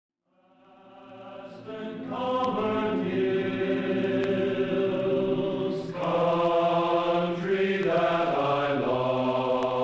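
Background music: voices chanting in long held notes, fading in from silence over the first two seconds, with the chord shifting a few times.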